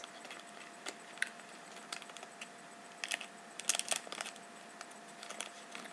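Thin plastic sticker sleeve crinkling and ticking in the hands as a sticker is worked into it: light, scattered crackles with a busier cluster about three to four seconds in.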